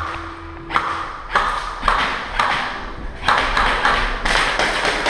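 A run of sharp taps and knocks, about two a second, each trailing off with a short echo.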